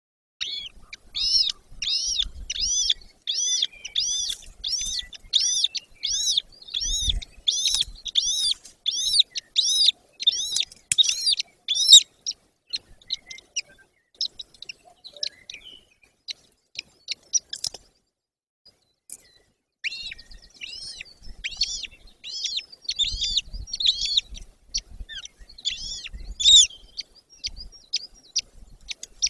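Golden eagle chicks calling from the nest: a run of thin, high, arched peeps about two a second, breaking off about twelve seconds in, then scattered notes, and a second run starting about twenty seconds in.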